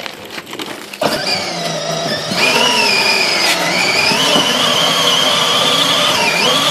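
Electric drive motor and gearbox of a Power Wheels ride-on toy Dodge Viper whining at full power as its rear wheel spins against concrete while the car is held in place, a toy-car burnout. It starts suddenly about a second in, and the high whine steps up in pitch about a second later, then wavers.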